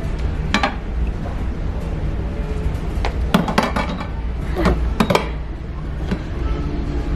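Toy pots and dishes clinking and knocking as a toddler plays with them at a play kitchen. There is one clink about half a second in, then a cluster of knocks between about three and five seconds, over a steady low hum.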